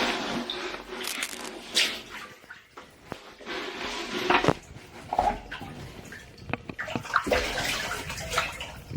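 Water splashing and sloshing in uneven bursts, as of rubber boots wading through shallow floodwater.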